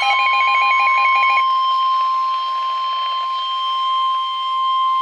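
NOAA Weather Radio warning alarm tone, a single steady 1050 Hz tone held without a break, announcing a warning broadcast. For about the first second and a half, a second, warbling beep pattern sounds over it, then stops.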